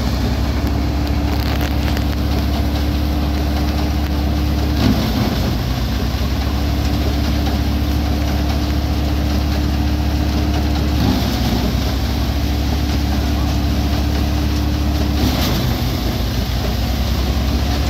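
Tractor-driven Dasmesh paddy thresher running steadily under load while paddy is fed into its drum. Its note dips briefly three times, about five, eleven and fifteen seconds in.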